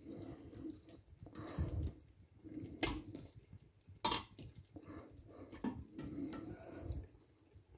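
Bone-in chicken pieces being put into a pot of cooked masala: soft, wet plops and drips, with three sharp knocks of utensil on pot.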